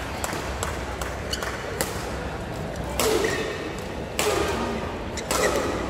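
Badminton rally: rackets striking the shuttlecock in quick exchanges, with a sharp hit every half second or so at first, then three louder hits about a second apart near the end.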